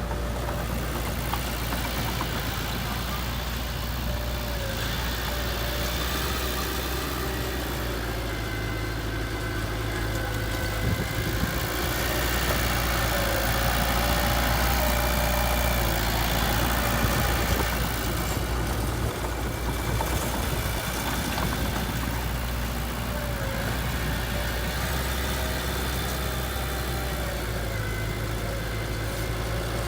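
Heavy machine engine running steadily at low revs, getting a little louder about halfway through and then settling again.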